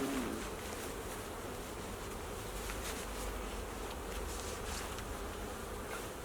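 Honeybees buzzing in a steady, even hum around an opened Flow hive during an inspection.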